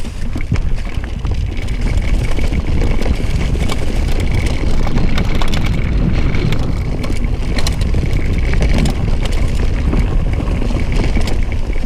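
Mountain bike riding along a dirt trail, with wind rumbling on the microphone and frequent small rattles and clicks from the bike.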